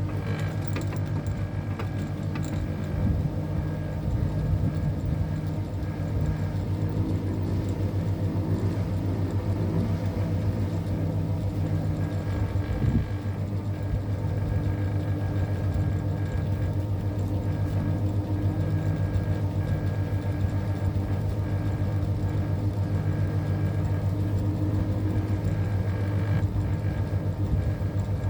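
Electric ceiling fan running at a steady speed: a continuous low motor hum with a fast, even flutter.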